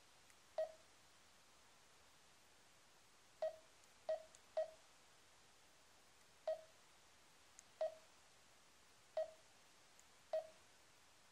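Garmin Dezl 760 LMT sat-nav's touch tones: a short beep each time its touchscreen is tapped, eight in all at irregular intervals, three in quick succession about four seconds in.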